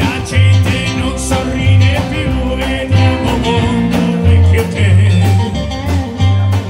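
Live band playing a song: a man singing over keyboard, drum kit and guitar, with low bass notes and a steady drum beat.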